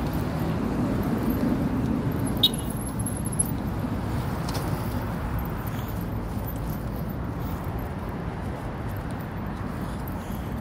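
Street traffic: a steady low rumble of car and road noise, a little louder in the first couple of seconds as a car goes by close. Two short sharp clicks come about two and three seconds in.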